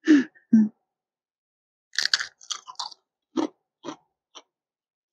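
Two brief vocal sounds, then a crunchy bite into a paprika Lay's potato chip about two seconds in, followed by steady chewing at about two chews a second, close to a clip-on microphone.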